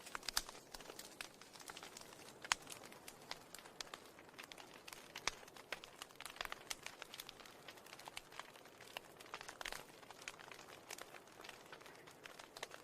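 Faint, irregular crackling: scattered sharp clicks and crackles over a low hiss.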